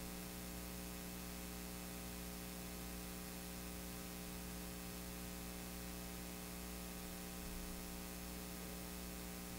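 Steady low electrical mains hum with faint hiss from the sound system, as the microphone signal has cut out.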